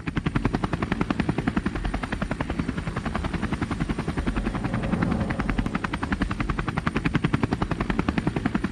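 Propeller aircraft sound effect: a rapid, even chopping pulse of a spinning propeller and engine, swelling slightly around the middle.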